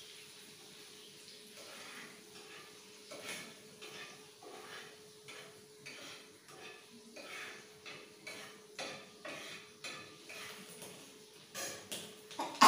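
Spatula scraping and clinking against a kadai as food is stirred, about two strokes a second, starting about a second and a half in. Right at the end a sudden loud sneeze breaks in, set off by the chilli fumes.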